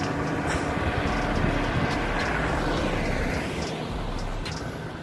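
A motor vehicle passing on the road, its engine and tyre noise swelling and then fading away about three and a half seconds in.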